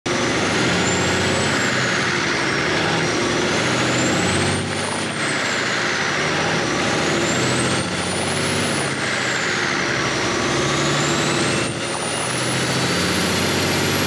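Turbocharged diesel engine running hard, with a high turbo whistle that rises and falls several times as the revs climb and drop.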